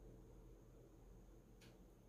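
Near silence: room tone with a steady low hum and one faint click about a second and a half in.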